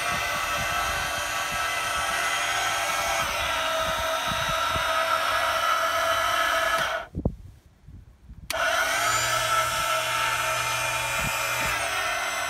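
Yamaha 90 outboard's power trim and tilt unit, its electric motor and hydraulic pump whining steadily while the switch is held. It changes note a few seconds in, cuts out suddenly about seven seconds in, and starts again a second and a half later.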